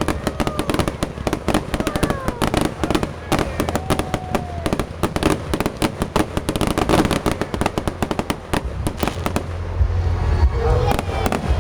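Fireworks show going off close by: a dense, rapid barrage of bangs and crackling pops, several a second, over a low booming rumble that grows stronger near the end.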